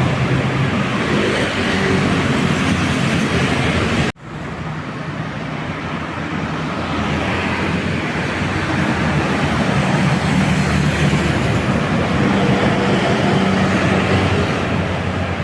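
Heavy road traffic with large diesel bus engines running past, a steady loud roar with a low engine hum. It cuts out abruptly about four seconds in and resumes as a similar roar that slowly builds.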